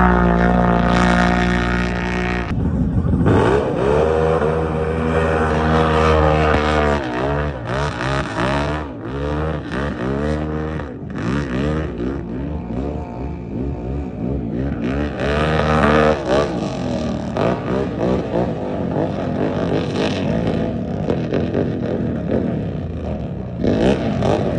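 Small off-road racing engines revving up and down as the racers pass, several overlapping. A steady engine drone in the first couple of seconds gives way to rising and falling engine pitch.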